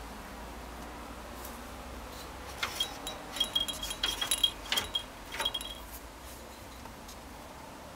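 Small bell inside a plastic toy ball jingling in irregular bursts as a ferret kit pushes the ball around, for about three seconds in the middle, with a few light clicks of the ball knocking about.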